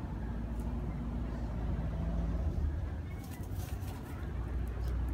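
A steady low rumble, with a short cluster of faint high ticks about three to four seconds in.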